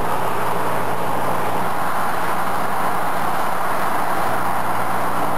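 Steady road and wind noise of a car travelling at highway speed, heard from inside the cabin.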